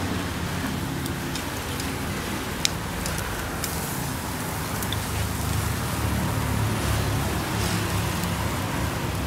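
Steady low rumble of road traffic, with a few sharp clicks.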